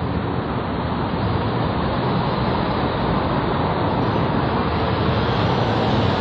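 Steady street traffic noise of passing vehicles, growing slightly louder near the end.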